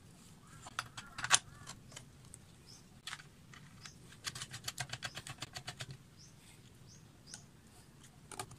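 Small steel bolts and nuts clinking and tapping against a bench grinder's housing and a wooden workbench as they are handled and fitted, with a sharp clink about a second in and a quick run of light ticks, about seven a second, near the middle.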